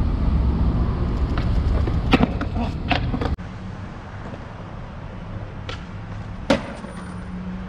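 Skateboard wheels rolling with a low rumble, with a few sharp clacks of the board about two to three seconds in. After an abrupt cut a fainter steady hum is left, with one more sharp clack near the end.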